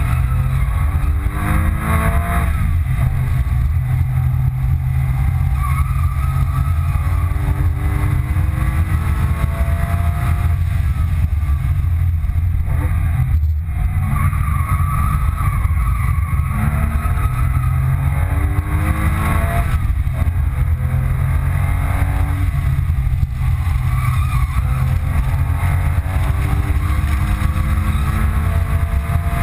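2005 Porsche 997 Carrera 2's 3.6-litre flat-six engine heard from inside the cabin, driven hard on a race track: it revs up over a few seconds, drops back, and climbs again, over and over, with a steady low drone beneath.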